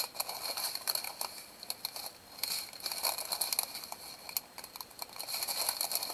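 Thin clear plastic bags of diamond painting drills crinkling and rustling as they are handled, with many small irregular clicks.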